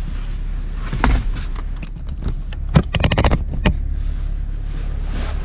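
Bedding being handled in a truck's back seat: rustling, with a quick run of small sharp clicks around the middle, over a steady low hum.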